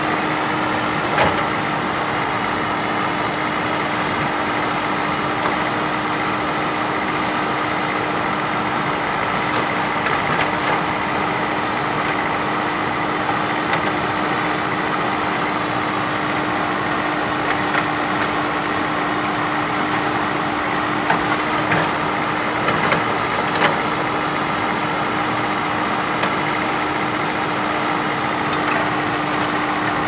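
JCB backhoe loader's diesel engine running steadily with a constant whine, and a few sharp knocks, most of them about two-thirds of the way through.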